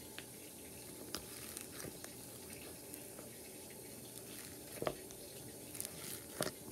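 Washing machine running with a steady, faint watery churning. Over it, a few short clicks and crackles from hands squeezing foam-bead slime in a plastic tub, the loudest about five seconds in and near the end.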